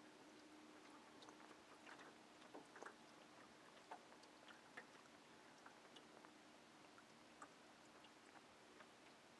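Near silence: a faint low hum and hiss with scattered small clicks.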